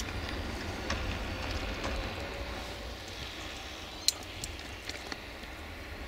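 Low, steady rumble of approaching 060-DA diesel-electric locomotives mixed with a bus driving past, with a single sharp click about four seconds in.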